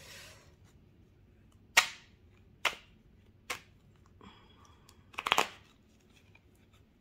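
A deck of oracle cards being handled on a table: three sharp clicks about a second apart, then a quick cluster of rapid clicks as the deck is shuffled.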